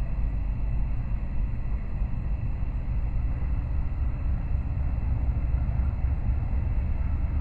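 Ex-Conrail GE C40-8 and GE AC4400CW diesel locomotives working under power as the train pulls away from a stop: a steady, deep engine rumble.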